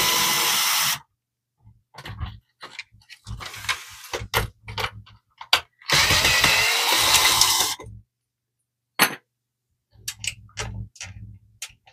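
Cordless drill/driver running in two spells, about a second at the start and nearly two seconds past the middle, backing screws out of the printer's metal plate. Short clicks and knocks from handling parts and screws come in between and near the end.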